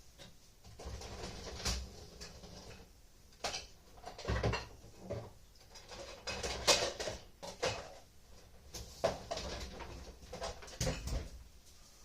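Dishes, containers and utensils handled while a cooked roast is portioned out: irregular clattering knocks and scrapes, the loudest about four and a half and seven seconds in.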